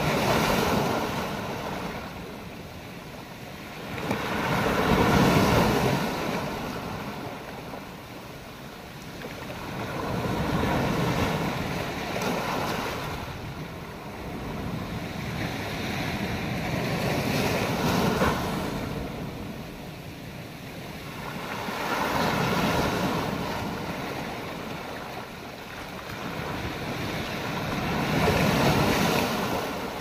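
Sea surf washing in over rounded beach rocks and draining back, a rushing noise that swells and ebbs about every five to six seconds.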